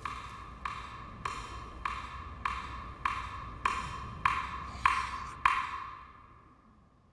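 A steady, even beat of sharp wood-block-like clicks, each with a short ringing tone, about one every 0.6 seconds. The strikes grow louder, the last one comes about five and a half seconds in, and the ringing then dies away.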